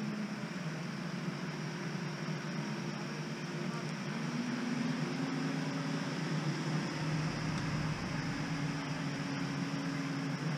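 Diesel engines of heavy farm tractors running at a distance, a steady drone with a hiss over it; the engine note rises and grows a little louder about four to five seconds in, then holds.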